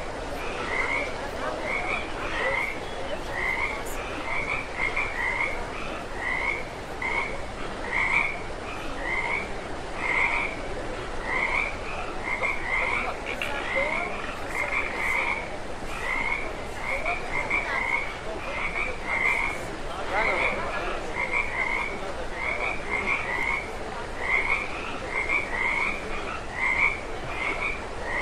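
Frog croaking over and over, short calls repeating about twice a second, sometimes in quick pairs.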